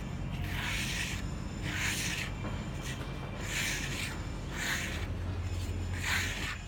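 About five scraping strokes, roughly a second apart, of a hand tool spreading Valpaint Klondike base coat over a rough wall panel. A low steady hum sits underneath.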